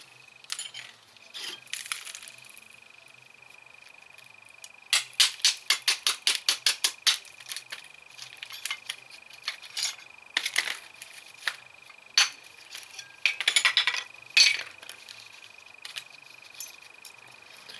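Metal tools and brake parts clinking and knocking during hand work on a car's front brakes, with a quick run of about a dozen clicks about five seconds in and scattered single knocks after it.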